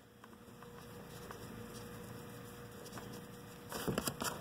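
Faint steady background hum, then a short cluster of clicks and rustling near the end from the phone being handled and moved.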